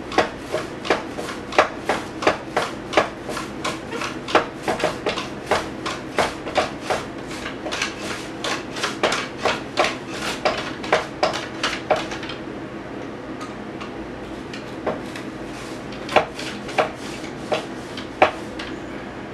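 Onion being sliced on a mandoline held in a pronged hand guard: a quick, even run of slicing strokes, about three a second, for roughly twelve seconds, then a pause and a few more strokes near the end.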